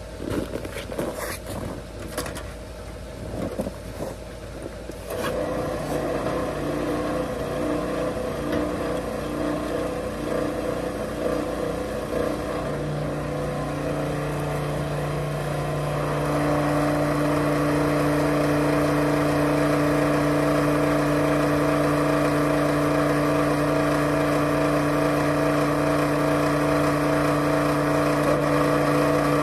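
A few clicks and knocks, then a gasoline pump on a farm fuel tank starts about five seconds in and runs with a steady hum while fuel is pumped into a snowmobile's tank. The hum gets louder twice, around twelve and sixteen seconds in.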